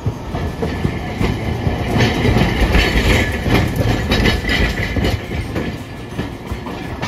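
Hiroden streetcar no. 1905, an old single-car tram, rolling past close by on wet street track. It makes a low rumble with wheels clicking over rail joints and points. It is loudest from about two to five seconds in, when a steady high tone sounds for a few seconds.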